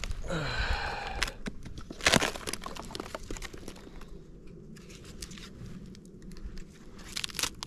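A knife prying a long slab of dry, rotten wood off a dead tree stump: crackling and tearing as the wood splits away, with one sharp crack about two seconds in, then lighter scattered crunching and snapping.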